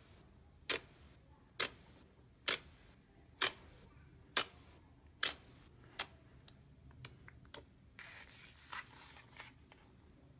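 Slime being pressed and poked, giving sharp popping clicks about once a second, then smaller, quicker pops and a short soft squish near the end.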